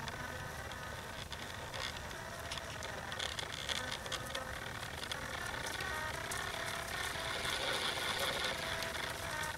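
Two-wheeled pony driving cart rattling as a miniature horse pulls it along, growing louder about seven seconds in as it comes close.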